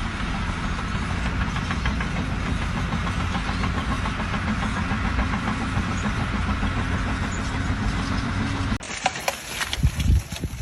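A large engine running steadily at an even low speed. It cuts off abruptly about nine seconds in, and a few scattered knocks and thumps follow.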